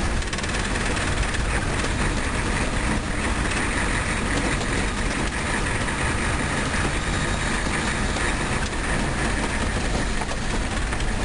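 Steady road and engine noise inside a moving car's cabin, an even rumble of tyres and engine with no break.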